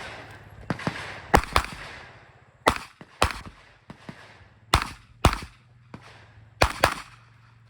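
Revolver shots fired in quick pairs: four loud double-taps, a second or so apart, after a few fainter shots in the first second.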